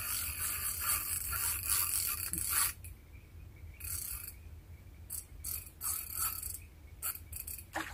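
Fishing reel ratcheting in spurts while a hooked carp fights on the line: a long run of clicking for the first two to three seconds, then a short burst about four seconds in and several quick bursts near the end.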